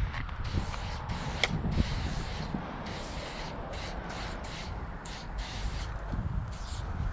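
Aerosol spray-paint can hissing in a quick series of short bursts, each one a stroke of white paint laid on a concrete block wall to write a tag. A steady low rumble runs underneath.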